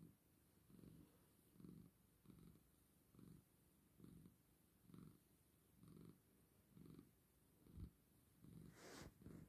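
Persian cat purring softly, the purr swelling and fading in a slow rhythm about once a second. A brief rustle near the end.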